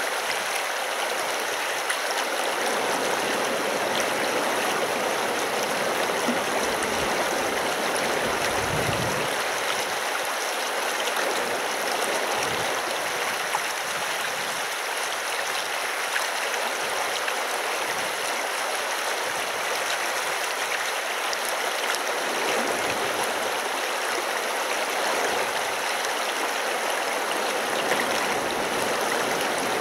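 Taiga river flowing over rocks: a steady, unbroken rush of water.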